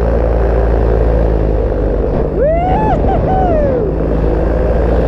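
Paramotor engine and propeller running steadily in flight. Partway through, a brief pitched call about a second long rises, holds, then falls away over the engine.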